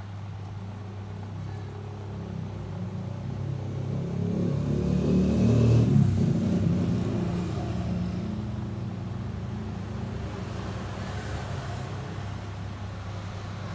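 Steady low hum, with a road vehicle passing that rises to its loudest about six seconds in and then fades away.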